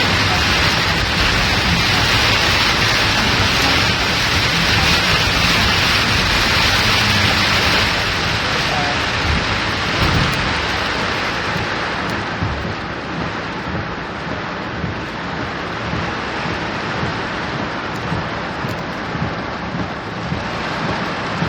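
Steady rushing hiss of heavy rain and water around a car driving through a flooded street, over a low road and engine rumble. The hiss eases off about halfway through.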